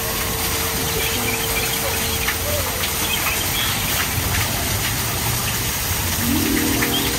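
Steady rushing splash of the grotto's small waterfall into the wishing-well pool, with scattered faint high chirps. A single held tone sounds through the first half, and a brief cluster of lower pitched notes comes near the end.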